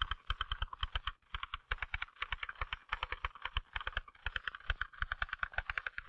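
Manual typewriter being typed on fast: a quick, even run of key strokes, several a second, each typebar hitting with a clack and a low thud.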